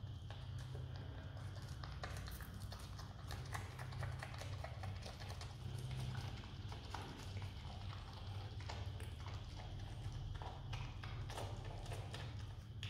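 Himalayan marmot chewing jackfruit: rapid, irregular clicking and smacking of its mouth and teeth, over a steady low hum.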